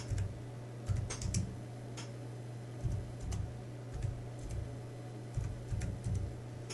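Computer keyboard being typed on, single keystrokes clicking at an uneven, unhurried pace as a short phrase is typed, over a steady low hum.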